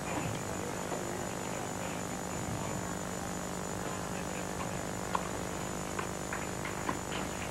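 A few faint tennis ball strikes, sharp pops about a second apart in the second half, over a steady hum and hiss.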